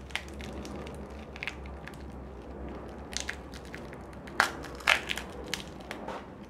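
Irregular crunching and clicking of kitchen food preparation: a dozen or so sharp snaps at uneven intervals, the two loudest about four and a half and five seconds in, over a low steady hum.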